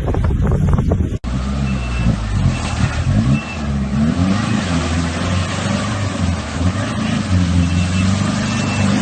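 Wind buffeting the microphone until an abrupt cut about a second in, then an off-road vehicle's engine revving, its pitch rising and falling over and over as the throttle is worked.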